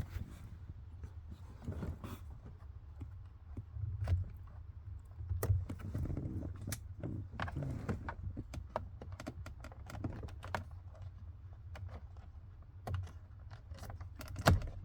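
Socket ratchet clicking in short runs while small screws are driven in, with light knocks of the tool and hand against the steering wheel.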